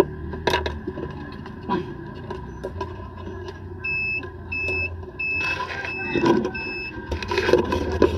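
Five short electronic beeps at one pitch, about two a second, over a steady low hum, with scattered light clicks and knocks from handling the board.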